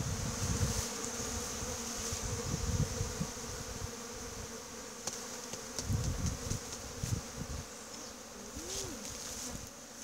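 A mass of honey bees buzzing around an opened hive as a comb frame is lifted out, a steady hum. Irregular low rumbles come and go beneath it, and a steady high hiss runs above.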